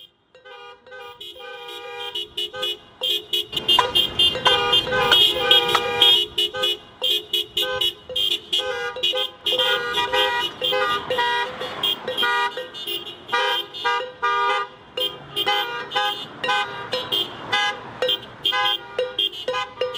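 Many car horns honking in repeated short and long blasts that overlap one another, mixed with sharp metallic clanks from banged pots. The din fades in over the first few seconds, then keeps on.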